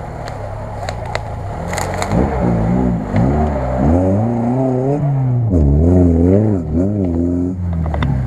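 Lada Niva (VAZ-2121) four-cylinder engine revving up and down as the car crawls over a rough forest track, its pitch rising and falling again and again and loudest as it passes close by midway. A few sharp snaps in the first couple of seconds.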